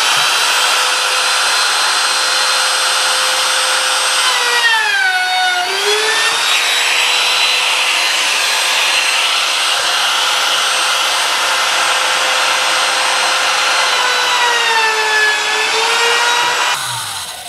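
Handheld trim router running at full speed and cutting a decorative groove in wood, with a steady high whine. The pitch sags twice as the bit takes load and recovers each time, then the router is switched off and winds down near the end.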